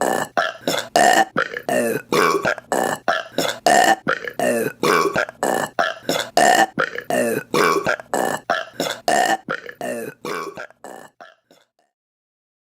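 A rapid string of short burps, about three a second, with the same run of burps repeating every few seconds. It fades out about eleven seconds in.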